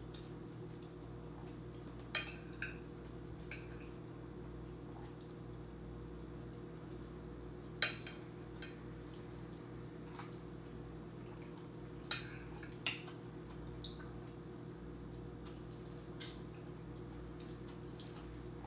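A metal spoon clinking and scraping against a glass plate in short, scattered clicks, about eight of them, over a steady low hum.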